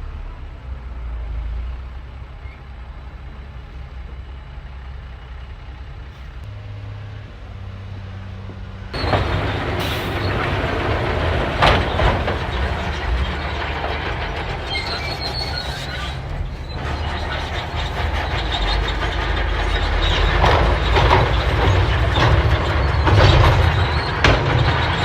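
Crawler bulldozer's diesel engine running low and steady, then about a third of the way in the sound jumps louder as its steel tracks clank and squeal, with scattered metal knocks.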